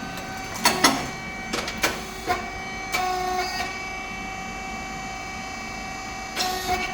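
SYP5804T rice cake machine running: a steady mechanical hum and whine, with a series of sharp clicks and knocks in its first three seconds and another short cluster near the end.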